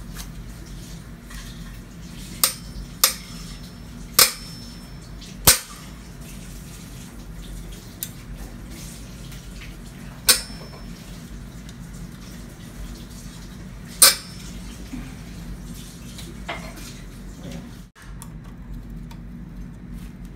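Sharp metallic clinks from an Allen key and chainring bolts being worked loose on a bicycle crank spider and chainring: about six separate clinks, a few ringing briefly, over a steady low hum.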